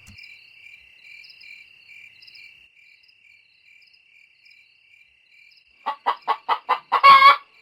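Crickets chirping faintly, then a chicken clucking: about six quick clucks starting near the end, followed by one louder, longer call.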